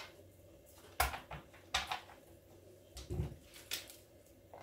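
Scattered clicks and knocks of a Paslode IM350 framing nail gun's parts and a cordless drill/driver being handled and set in place on a towel-covered bench during reassembly. There is no drill motor running.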